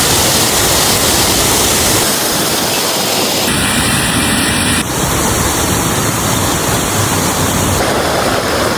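Loud, steady rush of falling water, as of a mountain stream or waterfall, its texture shifting abruptly a few times.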